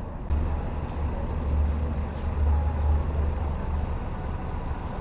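A motorcycle riding along a road: engine and road noise with a strong low rumble of wind on the microphone that comes in just after the start.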